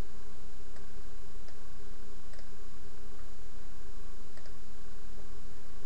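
Steady low electrical hum and background noise, with faint ticks every second or so.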